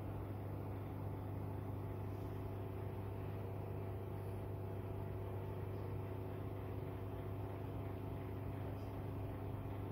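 Steady, unchanging low machine hum with a few faint higher tones over it.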